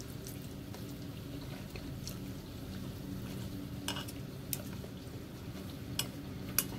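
Someone eating instant noodles from a bowl: quiet mouth sounds of eating, with a few sharp clicks of the utensil against the bowl in the second half, over a steady low hum.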